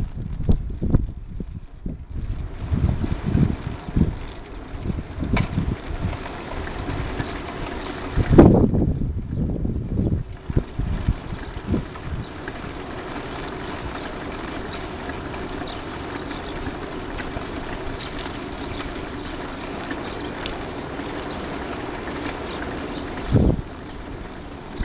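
Wind buffeting the microphone of a camera carried along on a moving bicycle, in gusty low rumbles with a strong gust about eight seconds in. The gusts settle into a steadier rumble of riding about halfway through, and a short gust comes near the end.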